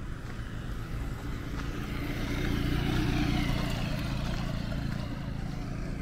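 A motor vehicle passing close by on a dirt road: its engine and tyre noise swell to a peak about three seconds in, then fade.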